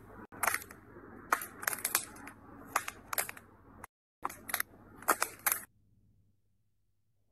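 Glossy slime squeezed and pressed between fingers, giving bursts of sharp sticky clicks and small pops from trapped air. There is a brief gap just past the middle, and the sound stops about three-quarters of the way through.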